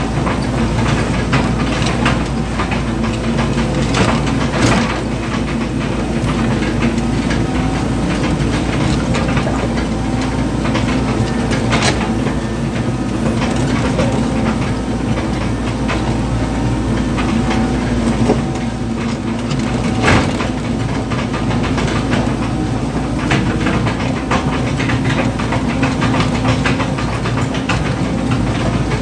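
Excavator's diesel engine running steadily, heard from inside the operator's cab, with a few sharp clicks or knocks.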